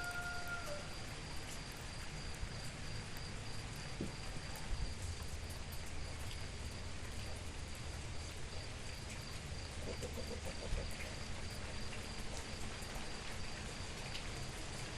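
Steady rain falling, with an insect trilling continuously at a high pitch. A whistled call fades out in the first second.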